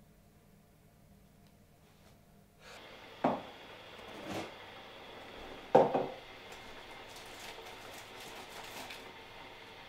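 Mug and jar handled on a kitchen worktop. After a quiet start, three knocks of crockery set down on the counter come about three, four and six seconds in, the last the loudest. Light clicks and a steady hiss follow.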